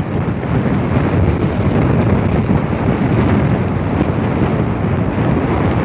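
Steady wind rush buffeting the rider's microphone on a moving motorcycle, with the bike's running and road noise mixed in.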